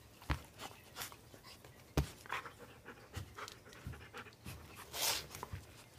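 Golden retriever panting and snuffling while it mouths a person's hand right at the microphone: irregular breathy puffs, the strongest about five seconds in, with sharp knocks near the start and about two seconds in.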